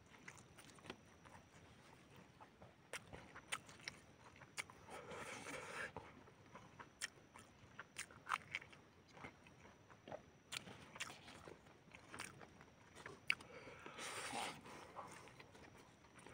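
Close-up mukbang eating sounds: crunchy bites into raw king chillies and chewing of fried noodles, with many small sharp clicks from the mouth. There are two longer, breathier stretches about five and fourteen seconds in.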